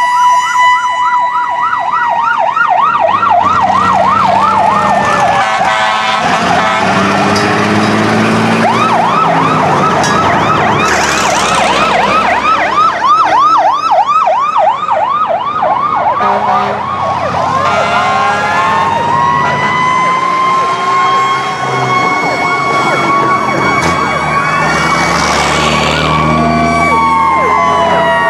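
Several emergency sirens on a passing procession of old fire engines and a vintage ambulance, overlapping: fast warbling yelp sirens and slower wailing sweeps. Past the middle, one siren winds up into a long steady tone that starts to fall near the end. Truck engines rumble underneath as the vehicles go by.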